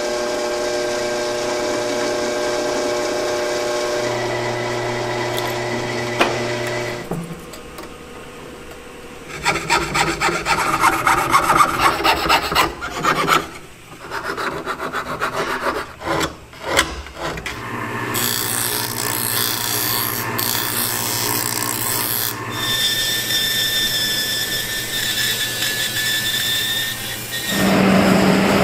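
A drill bores through a thin brass plate with a steady whine. Then a fine piercing saw cuts out the drilled openings in quick repeated strokes, followed by another steady machine whine. Near the end a gas torch flame comes on with a steady hiss, heating the brass.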